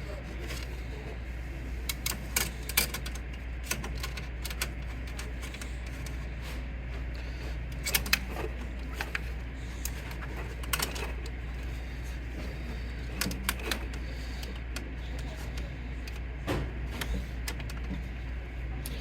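Scattered light clicks, taps and clinks of small metal printer parts and tools being handled and fitted, over a steady low hum.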